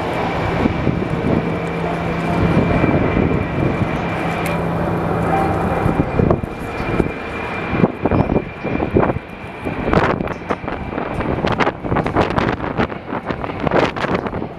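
Jet airliner engines running with a steady rush and a couple of held tones for about the first six seconds. After that, strong wind gusts buffet the microphone in uneven thumps that take over.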